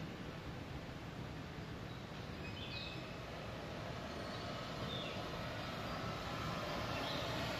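Steady low rumble and rushing hiss from riding a moving chairlift, slowly getting louder, with a few short high bird chirps about three, five and seven seconds in.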